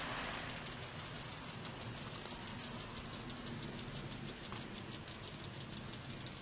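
Water from rooftop sprinklers spraying and pattering on asphalt shingles: a steady hiss with fine ticking, a little louder and hissier at the start.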